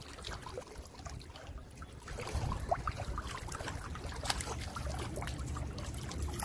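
Wind rumbling on the microphone, heavier from about two seconds in, over faint water lapping and small scattered clicks.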